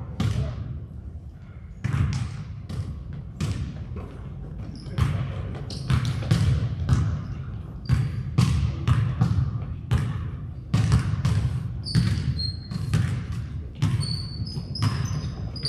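Basketball being dribbled on a hardwood gym floor, with sharp bounces roughly two a second and a brief lull about a second in.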